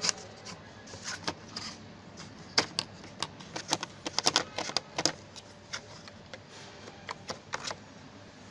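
Small hard tool parts, such as screwdriver bits, handles and a plastic case, being handled: a run of sharp, irregular clicks and taps. They come thickest in the middle and thin out toward the end.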